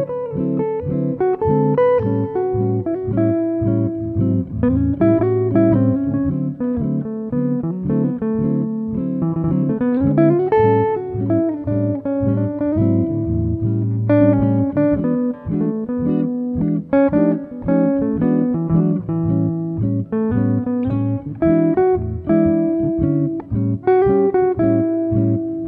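Background music led by plucked guitar, a steady run of picked notes.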